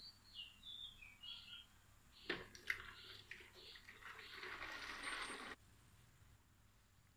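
Fish stock poured from an aluminium pot through a strainer lid into a plastic jug: two clinks of the pot against the jug, then about a second and a half of splashing pour that cuts off abruptly. Bird chirps sound in the background at the start.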